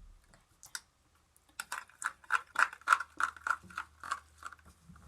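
Rhythmic clicking, about four clicks a second for about three seconds, as a mixing tool is stirred fast through gel soap and salt in a bowl, knocking against the bowl.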